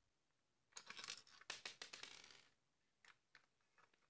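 Plastic housing of an electric hand mixer clicking and scraping as it is worked apart by hand: a cluster of sharp clicks for about two seconds, then a few faint ticks near the end.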